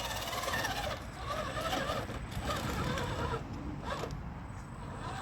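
Electric motor and geared drivetrain of a scale RC rock crawler whining as it crawls, the pitch rising and falling with the throttle. A sharp knock comes about four seconds in.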